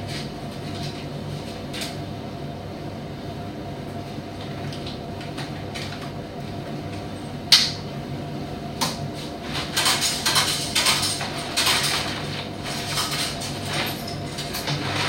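Primus commercial tumble dryer running with a steady hum, broken by a sharp knock about halfway through and a run of clattering knocks a little later.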